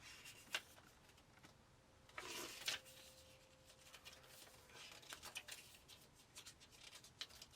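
Faint handling of a product box and its paper manual: a light click, a brief papery rustle about two seconds in, then scattered soft taps and clicks toward the end.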